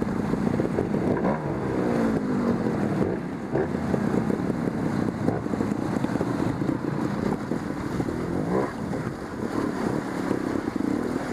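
Trials motorcycle engine blipped and revved in short bursts, its pitch rising and falling repeatedly as the bike picks its way up a rocky streambed.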